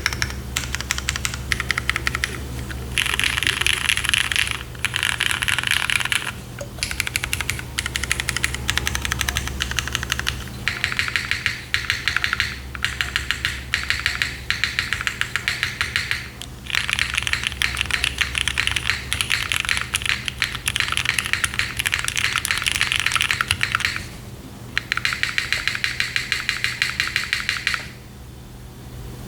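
Typing on a Neo60Cu gasket-mounted mechanical keyboard with modded Cherry vintage black linear switches, an aluminium plate and Cherry and GMK keycaps: fast, dense runs of key clacks in bursts of a few seconds with short pauses, stopping shortly before the end.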